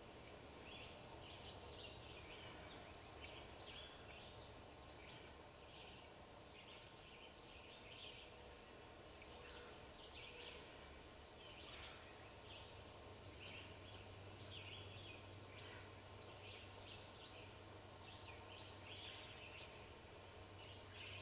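Faint woodland bird calls: many short chirps repeating throughout, over a low steady hum that gets louder about two-thirds of the way in.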